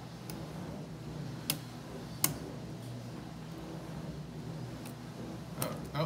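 Scattered sharp clicks of a lock pick working the pin stacks of a home-built challenge lock with serrated pins, under tension. The loudest click comes a little over two seconds in, and a quick run of clicks comes near the end.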